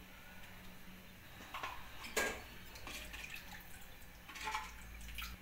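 A steel ladle stirring thin tamarind curry in an aluminium pan: the liquid sloshes, and the ladle clinks and scrapes on the pan a few times, sharpest about two seconds in.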